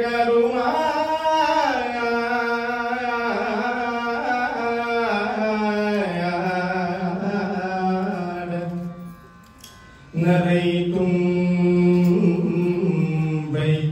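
A man singing a Carnatic devotional melody solo, on long held notes with sliding ornaments. He breaks off briefly about nine seconds in, then resumes on a lower held note.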